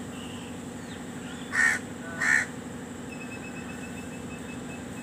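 Two loud, harsh, caw-like calls about 0.7 s apart, over a steady low hum.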